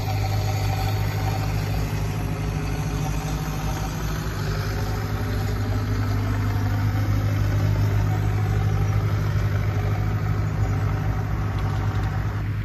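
Combine harvester's diesel engine running steadily at working speed as the machine approaches. It is a continuous low drone that grows slightly louder partway through.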